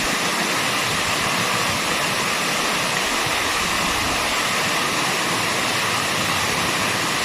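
Waterfall pouring with a steady, even rush of water, more hiss than low rumble.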